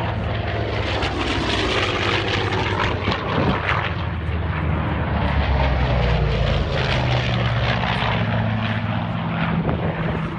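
Propeller-driven warbird's piston engines running loud and steady as the aircraft flies past. The engine pitch slides through the pass.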